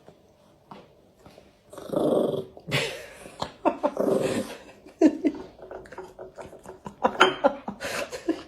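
A dog growling in irregular bursts, starting about two seconds in.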